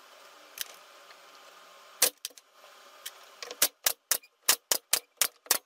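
Pneumatic nail gun firing nails through wooden slats into a pallet-board floor: a sharp shot about two seconds in, then a rapid run of about eight shots, three to four a second, near the end.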